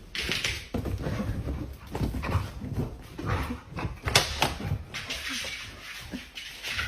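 A dog making small sounds amid rustling and handling noise, with a sharp knock about four seconds in.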